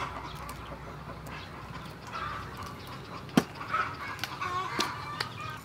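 Chickens clucking in the background, with a few sharp clicks, the loudest a little after halfway.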